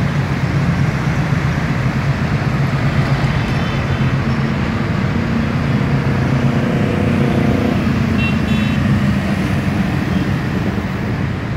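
Steady din of motorcycles and minibuses on the road, mixed with the low rumble of a passenger train's carriages passing over the level crossing. Short high beeps sound briefly about three seconds in and again about eight seconds in.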